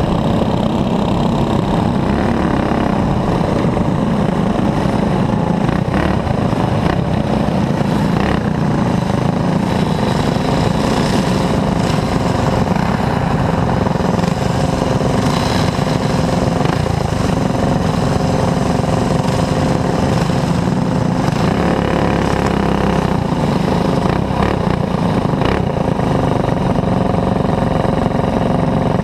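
Racing kart's single-cylinder clone engine running continuously at racing speed, heard loud and close from an onboard camera, with other kart engines mixed in.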